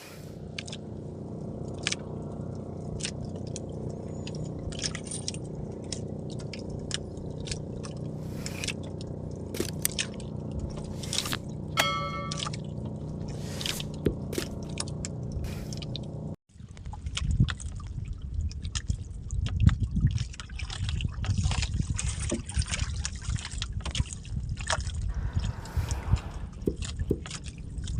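A small engine running steadily for about sixteen seconds, with a brief high tone about twelve seconds in. After a sudden cut comes irregular sloshing and splashing of water with scattered knocks.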